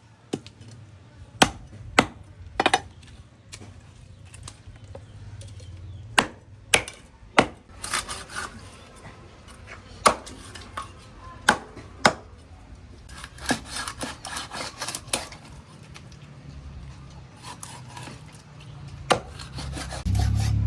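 Irregular sharp knocks and clicks with some scraping, like hand work on wood, with a quicker cluster of clicks a little past the middle.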